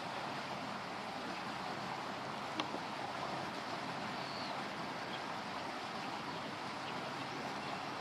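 Steady rushing of river water, with a single sharp click about two and a half seconds in.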